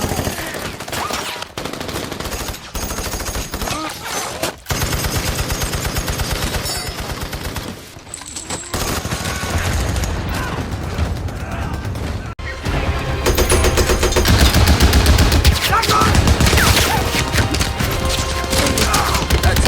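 Film battle sound of World War II–era small arms: dense, rapid automatic fire and rifle shots in quick succession, with several abrupt cuts, growing louder about two-thirds of the way in.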